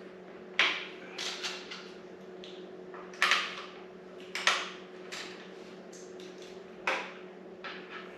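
Hand tools clanking and clicking against metal while the exhaust fasteners of a 2022 Kawasaki ZX10R are loosened: about eight sharp, separate knocks spread over several seconds, over a steady low hum.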